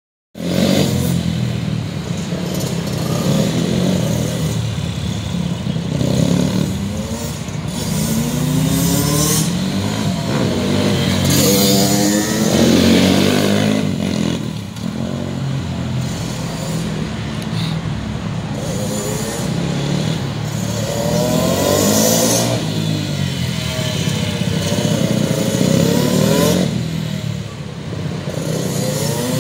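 Small 150cc motorcycle engines revving up and down as the bikes lap a tight track. The pitch rises and falls over and over as they accelerate out of the corners and close off for the next, and grows louder as a bike passes close.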